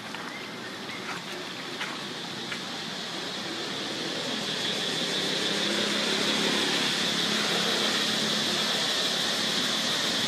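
Steady outdoor ambient drone, a high hiss-like band that grows louder over the first half and then holds level, with a few faint light ticks or rustles in the first couple of seconds.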